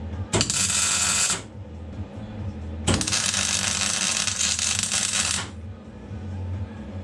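Electric arc welding on steel: the arc hisses and crackles in two bursts, about a second long and then about two and a half seconds, with a third starting at the very end, over a steady low hum.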